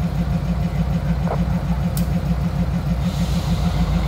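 GE B36-7 diesel locomotives' engines running at low throttle, a steady low throb with an even beat of about five to six pulses a second. A soft hiss of air joins about three seconds in.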